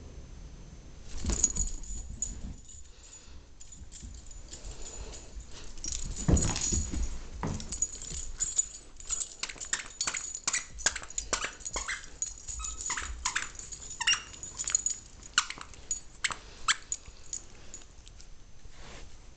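Squeaky plush dog toys squeaking over and over in quick, irregular runs, with scuffling of dogs at play around them.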